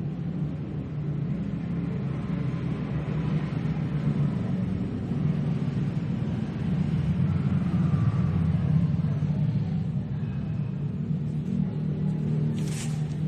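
Handheld electric orbital power tool, used for sanding and polishing a powder-coated surface, running steadily with a low hum.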